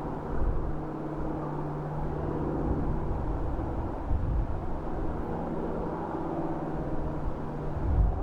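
Twin radial engines of a PBY-5A Canso flying boat running with a steady drone, with a few louder low rumbles.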